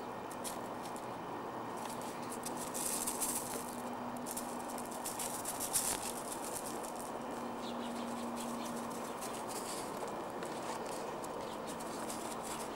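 Light crunching and pattering of footsteps on garden gravel over a steady outdoor hiss, with two busier bursts of crunching about a third and halfway through.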